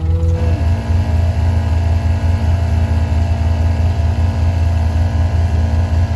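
An engine running steadily with an even, pulsing low hum while fly spray is sprayed from a hose wand.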